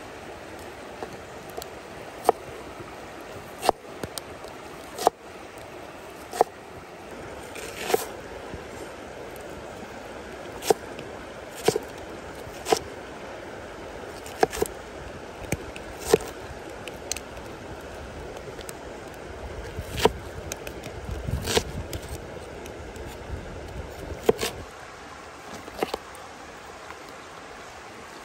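Cleaver blade knocking on a wooden cutting board while slicing leek into strips: irregular sharp knocks, about one every second or so, with a quicker cluster about two-thirds through. A stream rushes steadily underneath.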